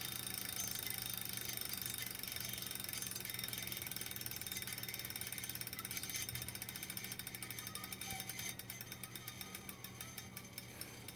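Wahoo KICKR smart bike trainer spinning down, with a rapid ratcheting clicking that slows and fades towards the end as the flywheel coasts to a stop. This is the loud grinding noise from the trainer.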